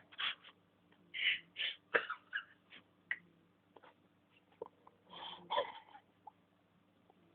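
A sleeping cat snoring in short, irregular noisy breaths. The breaths come in clusters about a second in, around two seconds in and again about five seconds in.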